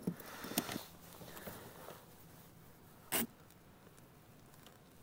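Close handling of fishing tackle while a soft-plastic craw trailer is threaded onto a jig: rustling of gloves and plastic with a few small clicks, then one short sharp click or snap about three seconds in, the loudest sound.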